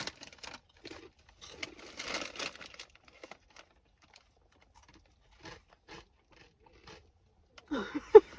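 Crunching of a crisp corn snack being bitten and chewed, with some crinkling of the packet early on, then sparse small crunches. Near the end there is a short, loud vocal sound.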